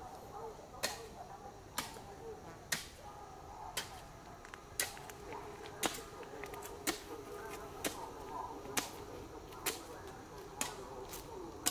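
A sharp click or snap repeating about once a second, about a dozen in all, over a faint wavering background.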